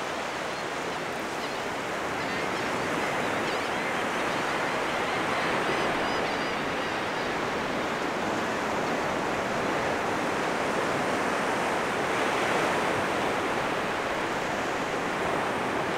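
Ocean surf washing onto a beach: a steady rushing wash that swells and eases gently as waves break.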